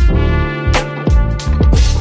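Background music with a steady beat of deep bass hits that fall in pitch, sharp high percussion and sustained melodic tones.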